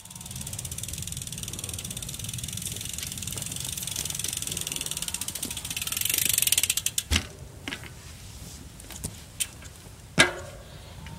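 Mountain bike's rear freehub ratchet buzzing with rapid clicks as the wheel rolls without pedalling, growing louder until it stops suddenly about seven seconds in. A few sharp clicks and a knock follow, the loudest about ten seconds in.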